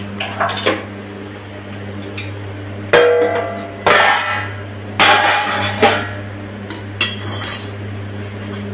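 Steel skimmer clanking against a steel kadhai while lifting fried onion pakoras out of the oil: several sharp metallic knocks, each ringing briefly, mostly in the second half.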